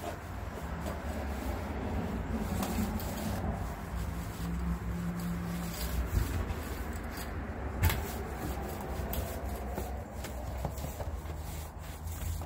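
A stain pad applicator on a pole rubbing back and forth across wooden deck boards while stain is spread. There is one sharp tap about eight seconds in.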